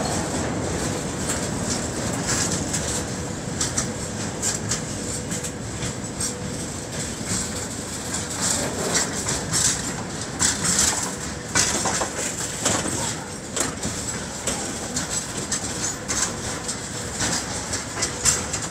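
Freight train of covered boxcars rolling past: a continuous rumble of steel wheels on the rails, broken by irregular sharp clicks and clanks.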